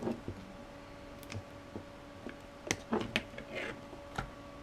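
Side cutters snipping and prying at a laptop battery pack of 18650 lithium-ion cells: irregular sharp clicks and small snaps, with a brief scrape about three and a half seconds in.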